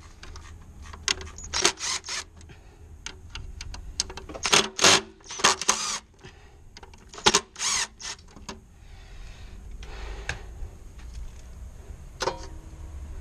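An irregular series of sharp clicks and knocks, with a steady low hum underneath.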